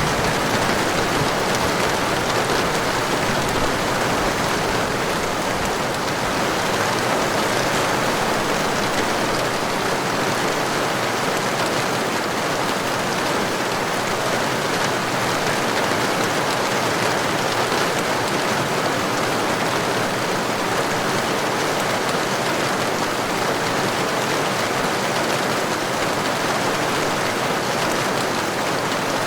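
Heavy rain falling in a steady, dense hiss. A low rumble fades away over the first several seconds.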